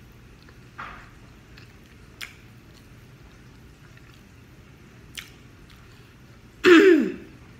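Faint mouth clicks and small wet noises over a steady room hum, typical of eating. Near the end comes a short voiced sound, about half a second long, falling in pitch, like a hum or an "mm".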